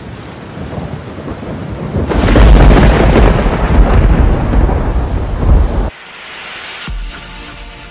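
Logo-intro sound effect: a thunder-like rumbling noise that swells and grows loud about two seconds in, then cuts off suddenly. About a second later a single low boom hits, followed by faint steady tones.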